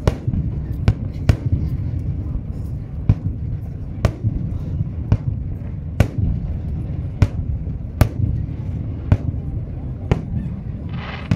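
Fireworks going off: a steady run of sharp bangs, about one or two a second.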